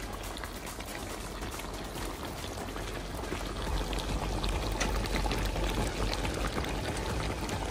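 Goat stew boiling in a large aluminium wok, its broth bubbling and spitting in a steady stream of small pops. A low rumble swells from about four seconds in.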